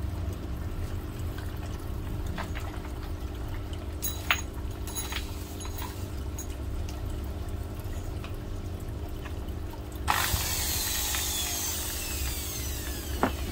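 Handheld electric drill: a few light clicks and knocks over a steady low hum, then about ten seconds in the motor starts suddenly with a high whine that falls steadily in pitch as it winds down.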